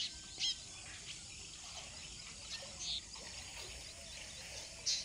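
Quiet rural outdoor ambience: a few short bird chirps, one about half a second in and a few near the end, over a faint, steady, high hiss of insects.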